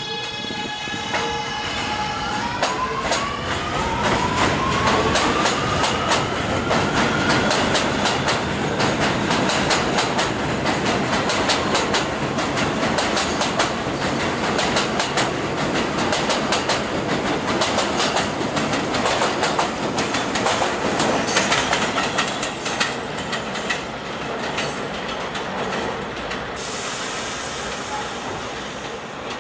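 R211A subway train pulling out of an elevated station: its propulsion whine rises in pitch as it accelerates over the first several seconds, then the cars run past with wheels clacking over the rail joints. Near the end the sound turns quieter.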